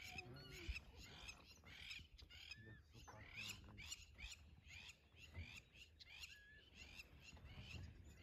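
African wild dogs twittering: a fast, unbroken run of faint, high chirping calls, several a second.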